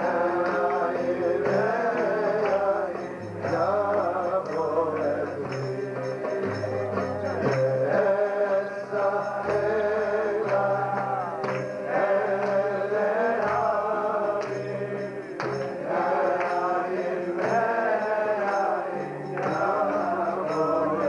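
Live Jewish song: a male lead singer with acoustic guitar and piano, and a roomful of men singing along, with a stepping bass line in the piano.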